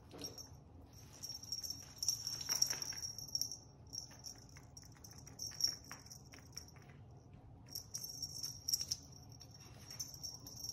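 Plastic tarp crinkling and crackling in short scattered bursts as a Siamese cat rolls and paws on it, batting at a feather wand toy. A steady high-pitched trill runs underneath, breaking off twice.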